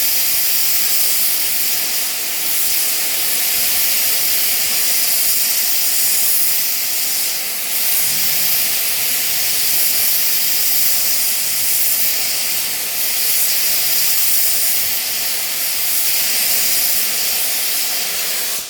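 Gas torch flame hissing steadily, the kind of torch used to weld quartz.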